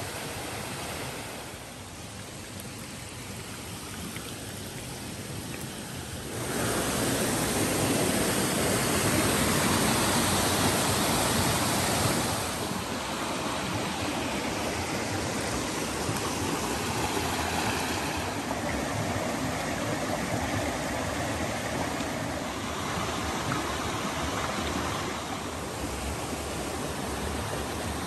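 Clear mountain stream rushing over limestone rocks and small cascades, a steady rush of water that grows louder about six seconds in.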